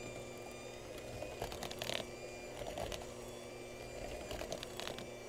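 Electric hand mixer running steadily with its beaters in stiff gingerbread dough in a plastic bowl, a whirring motor with a few light clatters of the beaters against the bowl, about two seconds in and again near the end.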